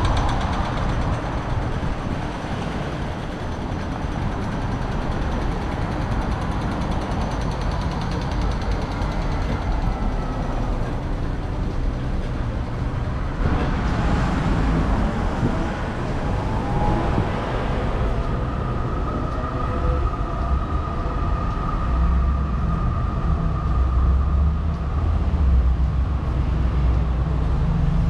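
Steady rumble of vehicle noise, with a brief louder swell about halfway through and a faint whine in the second half.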